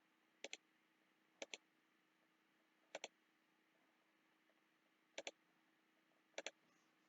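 Computer mouse clicking: five pairs of quick, sharp clicks spaced a second or two apart.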